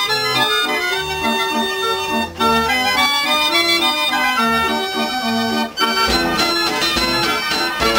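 Arthur Bursens mechanical fair organ playing a tune: its pipes carry a melody over a bass line, with two momentary breaks in the music.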